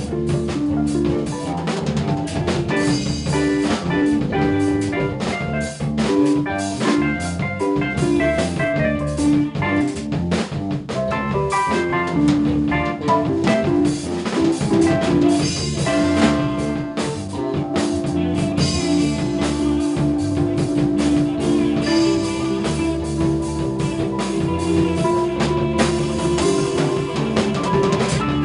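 Band music: a drum kit keeping a steady beat under electric guitar, electric bass and keyboards (electric piano and organ), with long held notes in the second half.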